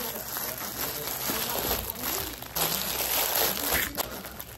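Plastic mailer bag and clear plastic garment wrapping crinkling and rustling as they are handled and pulled apart.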